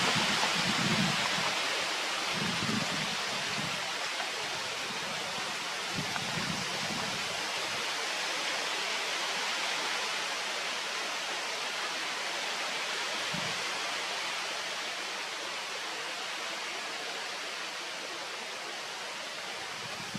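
Steady, even hiss of outdoor noise, with a few soft low rumbles in the first seven seconds and a brief low thump about 13 seconds in.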